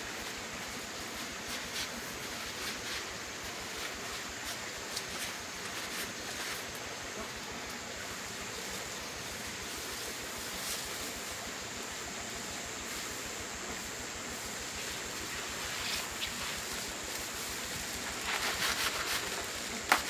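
Dry rice straw rustling and faint crackling of grain as harvested rice stalks are threshed, trodden and rubbed over a woven bamboo tray, over a steady outdoor hiss. Near the end a louder patch of rustling.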